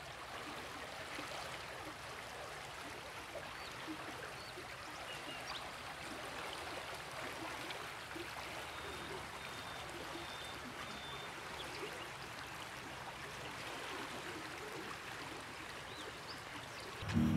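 Steady outdoor running-water noise, even and unbroken, with a few faint high chirps near the middle. Music with a low sustained chord comes in just before the end.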